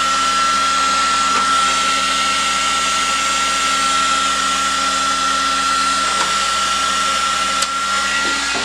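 Heat gun running steadily, its fan blowing with a steady high whine, shrinking heat-shrink tubing over a soldered wire splice.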